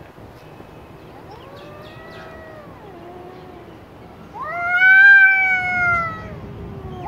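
Cats yowling at each other in a fight standoff: a fainter, drawn-out wail about two seconds in, then a loud, long yowl about four seconds in that rises sharply, holds and falls away.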